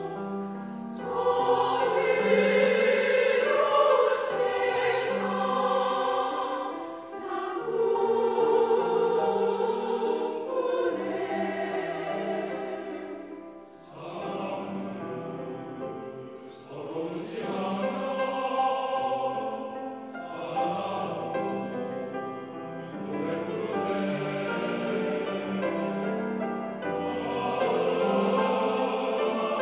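Mixed choir of men's and women's voices singing a sustained choral piece, the sound swelling and falling back several times, with a brief drop in loudness about 14 seconds in.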